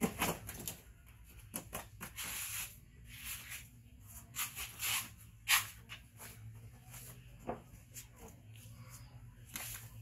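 A baby monkey thumps down onto a woven floor mat right at the start, then its hands and feet scuff and rustle irregularly on the mat as it scampers about.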